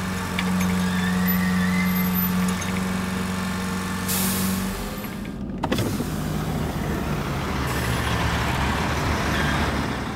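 Diesel engine idling steadily, with a short hiss of air about four seconds in. After an abrupt cut a little past five seconds, a louder, rougher heavy diesel engine runs.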